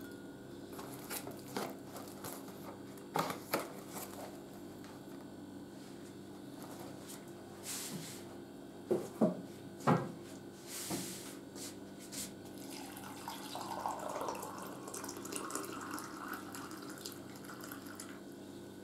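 Cardboard tea box and paper tea bags being handled, with light clicks and rustling, then three sharp knocks about halfway. For the last few seconds a stainless electric kettle makes a steady hissing, bubbling water noise as it comes to the boil.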